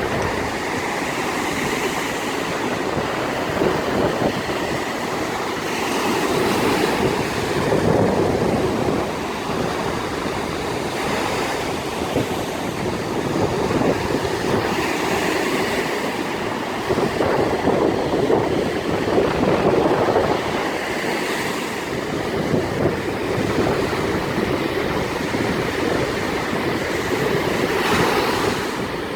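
Big sea waves breaking, a continuous rushing surf that swells and eases every few seconds.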